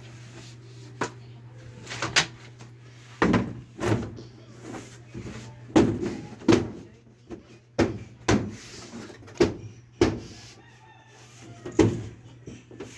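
Irregular knocks and bangs of carpentry work, about a dozen sharp strikes spaced unevenly, over a steady low hum.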